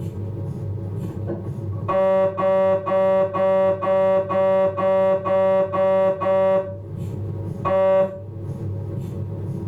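Philips 1.5 T MRI scanner's gradient coils running a respiratory-triggered T2 coronal abdominal sequence. Over a steady low hum, a train of about ten loud, pitched buzzes at roughly two a second starts about two seconds in. After a short pause, one more buzz comes near the end.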